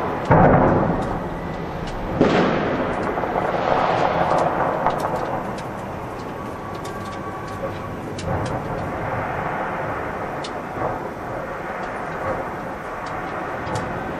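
Aerial fireworks bursting around a skyscraper: four heavy booms in the first eight seconds, the first the loudest, each rolling into a long rumble, with scattered crackling throughout.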